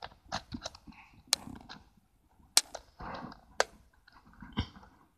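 Small plastic clicks and taps of a Nikon Coolpix 800's card slot and body as a CompactFlash card is pushed in and the camera is handled, with three sharp clicks among them and a soft knock near the end.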